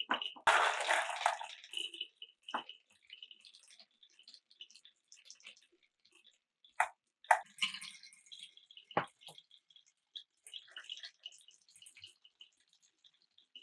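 Marbles rolling and clacking through wooden marble-run track pieces: a running patter of small clicks and rattles, broken by a few sharper knocks as balls drop onto the blocks.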